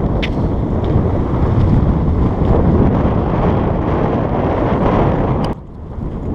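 Strong wind buffeting the camera microphone: a steady low rumble that drops away briefly near the end, then returns.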